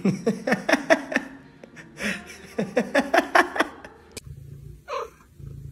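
A person laughing in two bouts of quick, falling 'ha-ha-ha' pulses, the second bout starting about two seconds in. A single click follows after four seconds.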